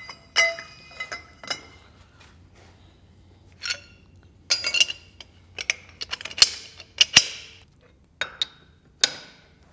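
Sharp metallic clinks and knocks as a steel tube and the steel pins of a JD2 Model 32 tube bender are handled and set in place, ready for bending. About ten separate ringing clinks come at irregular gaps, the loudest about six and seven seconds in.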